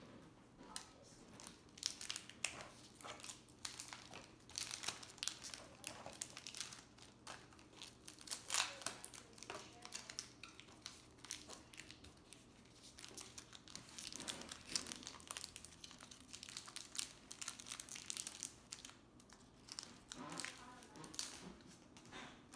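Foil wrapper of a Pokémon trading card booster pack crinkling and crackling as it is handled and torn open.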